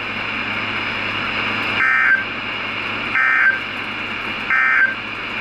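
Emergency Alert System end-of-message data bursts: three short, harsh digital warbles about 1.3 seconds apart, marking the close of the severe thunderstorm warning. A steady radio hiss runs underneath.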